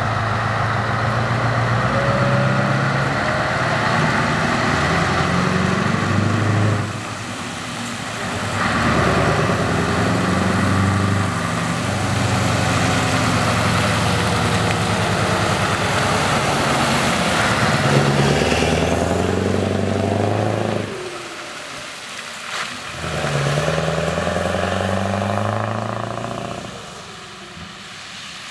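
Scania 164L 480 truck's V8 diesel engine pulling away and accelerating through the gears, its pitch rising in each gear and dropping at each shift. The truck passes and draws away, and the engine grows fainter near the end.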